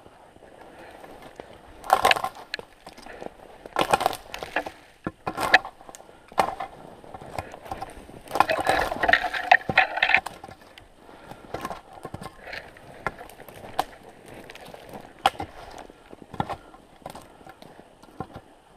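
Footsteps crunching through snow in a larch thicket, with dry twigs and branches snapping and brushing against the body. The crunches and cracks come irregularly, with a denser burst of crackling about eight to ten seconds in.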